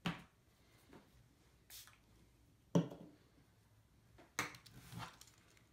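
Handling noises: a short, soft hiss of a single pump spray of cleaning alcohol onto a microfiber cloth, then a few knocks and clicks. The loudest knock comes a little before the middle, as the small plastic spray bottle is set down on the table.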